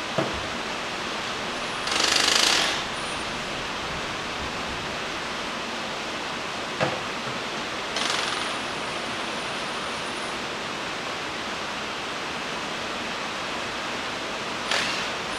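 Cordless impact wrench run in three short bursts, the longest and loudest about two seconds in, the second trailing off in a thin high whine, as it backs off the carburetor hold-down nuts on a 305 small-block Chevy. Under it runs the steady hiss of rain.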